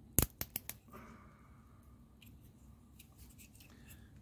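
A quick run of four sharp metal clicks from crocodile-clip test leads snapping onto the pins of a car's radiator fan connector. A faint, slowly falling whine follows.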